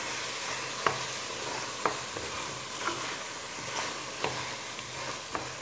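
Chicken pieces, vegetables and tomato sauce sizzling as they fry in a metal pot, with a steady hiss throughout. A wooden spoon stirs them, knocking and scraping against the pot about once a second. This is the spiced base being fried before water is added.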